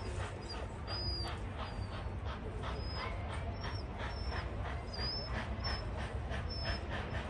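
Distant steam locomotive working as it approaches, its exhaust beats coming about two to three times a second, with short high squeaks over them and a steady low rumble underneath.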